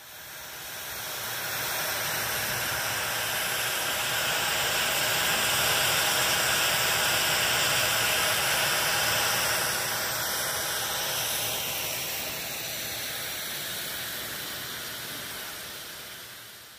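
Steam locomotive FS Gr.740 venting steam in a long, steady hiss that builds over the first couple of seconds, eases somewhat later on and dies away at the end.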